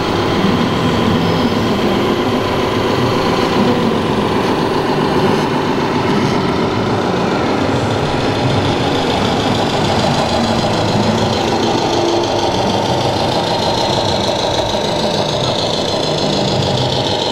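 Simulated diesel truck engine sound played by the sound modules of radio-controlled scale model trucks, idling and running steadily as the trucks creep along.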